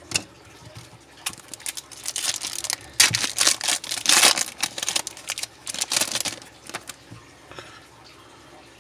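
A Topps Chrome baseball card pack's foil wrapper being torn open by hand: an irregular run of rustling crackles, loudest about three to four and a half seconds in, fading out after about seven seconds.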